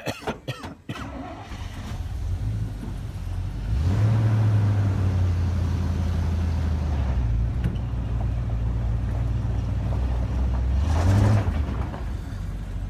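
Motor vehicle engine running while driving, with road noise. The engine note rises about four seconds in as it accelerates, holds steady, and drops back near the end.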